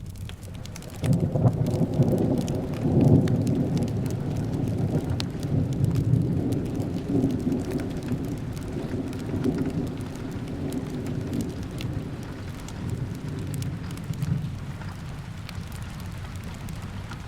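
A roll of thunder breaks in about a second in, loudest over the next couple of seconds and then slowly rumbling away. Underneath it run steady rain and the soft crackle of a wood fire.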